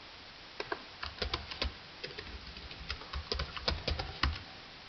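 Typing on a computer keyboard: irregular key clicks in short runs, starting about half a second in.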